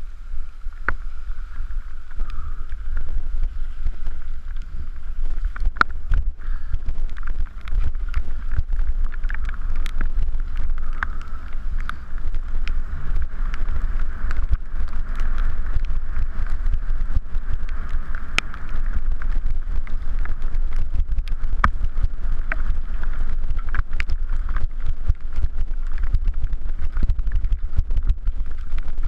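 Mountain bike riding fast down a wet, rocky dirt trail: a steady low rumble of tyres and wind on the microphone, with frequent clicks and knocks as the bike rattles over stones and bumps.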